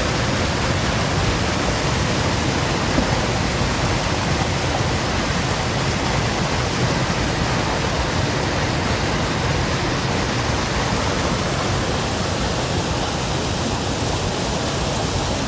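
Waterfall rushing: a loud, steady roar of falling water that holds even, with no change.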